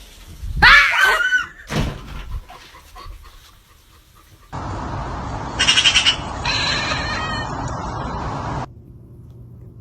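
A cat's loud, wavering meow about half a second in. Later a few seconds of steady noise start and stop abruptly, with some higher-pitched sounds over it.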